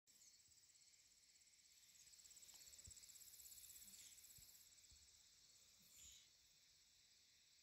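Near silence: faint room tone with a thin, rapidly pulsing high-pitched hiss.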